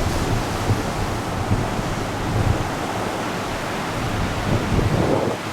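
Ocean surf washing onto the beach, with wind buffeting the microphone in gusts.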